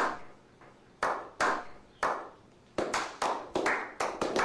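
Slow clap: single hand claps about a second apart, each ringing out briefly. From about three seconds in, more people join and the clapping speeds up into quick, overlapping claps.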